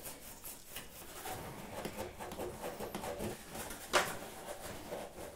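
Faint scraping and squeaking of a hand tool deburring a freshly drilled hole in the aluminium firewall, with one sharp click about four seconds in.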